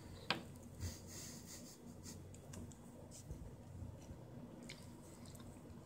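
Cat licking and chewing at small scraps of food on a wooden tabletop: faint, scattered wet clicks and smacks, with one sharper click about a third of a second in.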